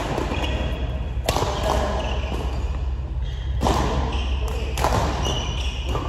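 A ball thudding on a hard floor in an echoing hall, four irregularly spaced hits, with short high squeaks between them over a steady low hum.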